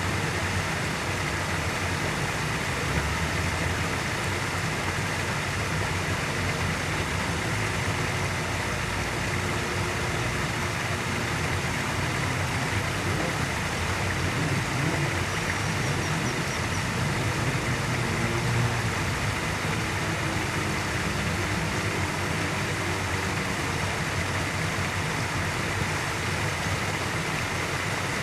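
Steady distant road traffic noise: an even rumble and hiss from passing vehicles that holds level throughout.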